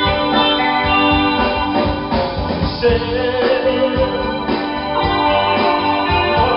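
A band playing an instrumental passage: electronic organ-style keyboard chords over bass guitar and drums.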